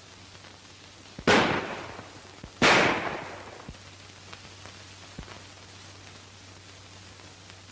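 Two gunshots about a second and a half apart, each with a long echoing tail, fired as a signal to call in the rest of the search party.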